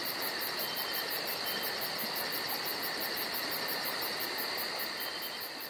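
Crickets chirping in a steady, high, rhythmic trill of about six pulses a second, fading out near the end.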